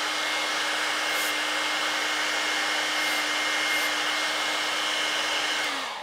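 Handheld electric hairdryer running on high: a steady rush of air with a steady fan-motor whine. Brief hisses of brake-cleaner aerosol are sprayed into its intake, and nothing ignites. The dryer is switched off near the end and its whine falls away.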